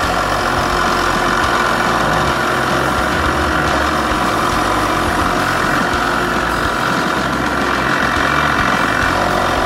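Steady, unbroken hum of an electric motor running in a workshop.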